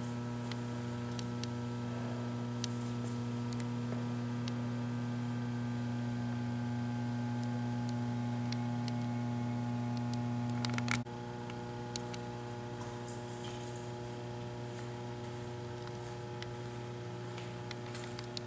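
Enco X6320A milling machine's electric motor running with a steady hum. About eleven seconds in the hum drops abruptly in level, with a click, and a few faint ticks sit over it.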